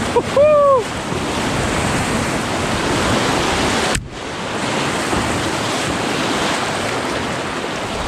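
Rushing whitewater of a river rapid churning around a canoe as it runs through, loud and steady. A brief vocal whoop comes about half a second in, and the water noise breaks off abruptly about four seconds in before carrying on.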